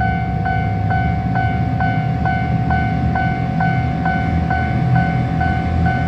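Japanese railway level-crossing warning bell ringing its steady "kan-kan" at a little over two strokes a second, the signal that a train is coming and the crossing is closed. A steady low rumble runs beneath it.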